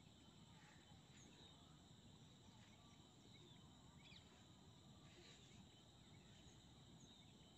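Near silence: faint outdoor ambience with a thin, steady high insect drone and a few short, faint bird chirps.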